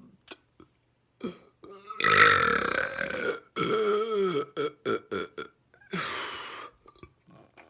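A man burping loudly several times on swallowed air: a long burp about two seconds in, then one with a wavering pitch, a few short ones, and another near the end.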